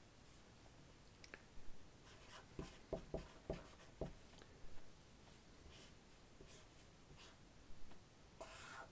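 Pen drawing on a sheet of paper on a desk: faint short scratchy strokes, with a few soft knocks about three seconds in.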